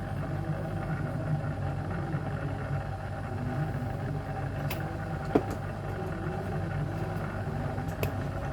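A steady low motor hum with a higher steady tone above it, and a few small sharp clicks about halfway through and near the end.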